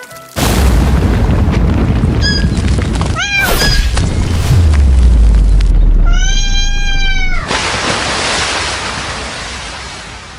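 A cat meowing: a few short meows about two to four seconds in, then one long meow around six seconds in. Underneath, a loud rumbling noise starts suddenly near the start, with a deep falling boom in the middle, and fades away toward the end.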